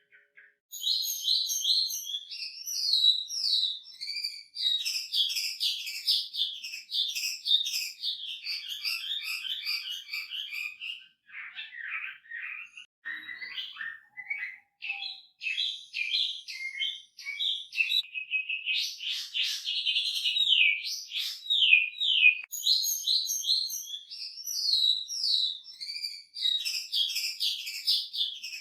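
Chinese hwamei (wambi) singing a loud, varied song of fast-repeated sweeping notes and trills, starting just under a second in.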